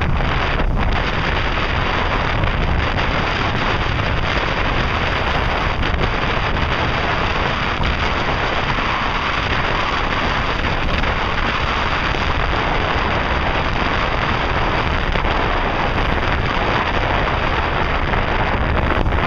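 Steady wind rushing over the microphone on the deck of a boat under way, mixed with the hiss of the choppy water: one even, unbroken roar.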